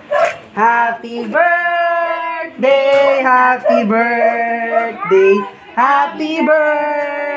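Singing voices holding long notes, with pitch slides between them and a few short breaks between phrases.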